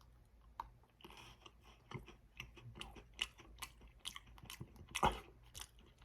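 Close-up crunching and chewing of a chocolate-covered Pocky biscuit stick, a run of irregular crisp snaps with a louder crunch about five seconds in.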